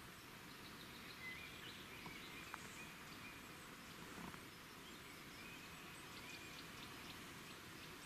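Faint outdoor background noise with a few thin, high chirps scattered through it.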